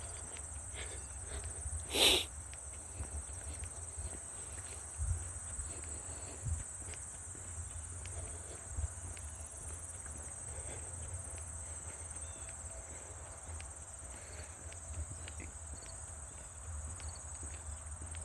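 Steady high-pitched buzz of insects, with the irregular soft thuds of footsteps on the trail and a brief loud rustle about two seconds in.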